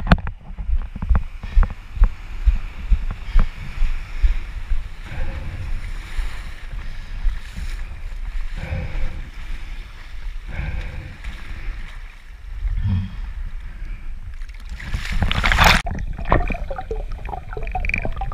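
Wind buffeting an action camera's microphone and waves washing around a diver wading into the sea, with steps knocking in the first few seconds. About fifteen seconds in there is a loud splash as the camera goes under, followed by muffled underwater bubbling and crackling.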